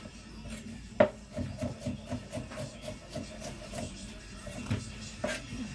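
Kitchen knife sawing through the firm top crust of a baked coconut pat bake in repeated scraping strokes, with a sharp knock about a second in and another near the end.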